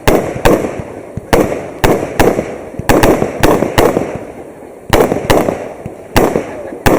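Fireworks display: a rapid series of sharp bangs from bursting fireworks, coming in quick groups of about three, each bang trailed by a rolling echo, with a short lull about four seconds in.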